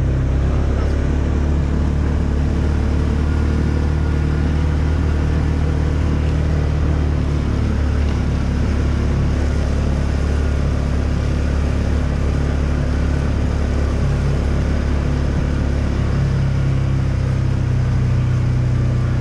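Polaris side-by-side utility vehicle's engine running steadily as it drives, heard from on board, with a low, even drone that shifts slightly about three-quarters of the way through.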